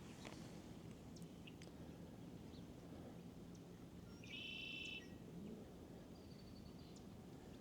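Faint outdoor quiet with small birds calling now and then: scattered short high chirps, one louder nasal, buzzy call lasting under a second about halfway through, and a thin high whistle near the end.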